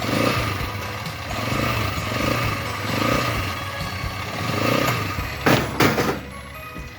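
Quad bike (ATV) engine running as it tows a small trailer. Two sharp knocks or rattles come close together about five and a half seconds in.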